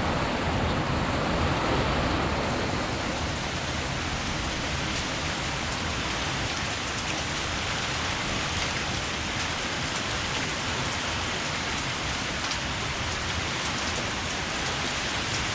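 Heavy downpour with small hail, hailstones a little bigger than pea size, falling steadily in the rain.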